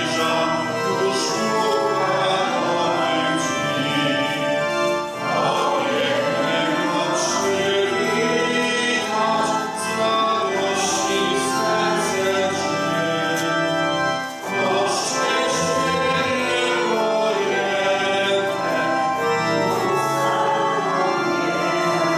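Church singing with organ accompaniment: a slow hymn sung by voices over sustained organ chords, with short breaths between phrases about five and fourteen seconds in.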